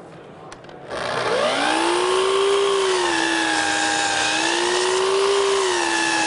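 Festool sliding compound miter saw starting up about a second in, its motor whine rising to speed and then holding steady, dipping slightly in pitch as the blade cuts through wood trim.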